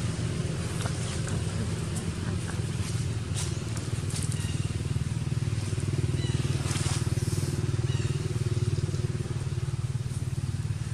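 Motor engine running steadily with a low hum, swelling a little louder in the middle.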